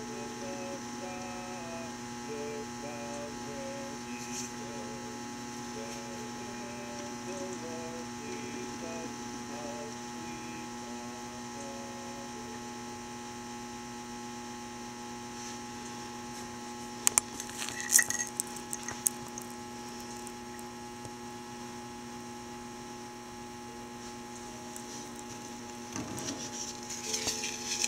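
Steady electrical hum, with faint short notes of a tune in the first ten seconds. A few sharp clicks come about two-thirds of the way in, and a short spell of rustling near the end.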